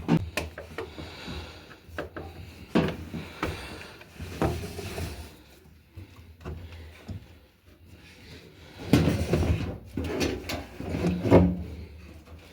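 Scattered knocks, clicks and rubbing as a top-loader washing machine's drum and suspension rods are handled and hooked into place, with a louder run of clatter about nine seconds in.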